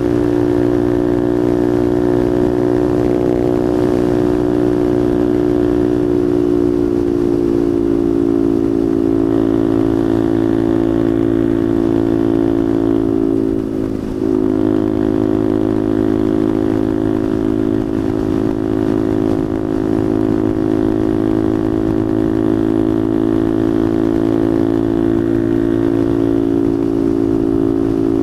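Motorcycle engine running steadily at cruising speed on the road. The engine note eases slightly lower about a quarter of the way in, then dips briefly about halfway through before settling back to a steady drone.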